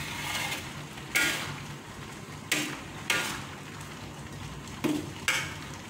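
Metal spoon scraping and stirring a thick chili and shallot paste with sliced kaffir lime leaves in a metal pan, a stroke about every second, over a steady sizzle. The paste is cooking down without oil to drive off the water it was blended with.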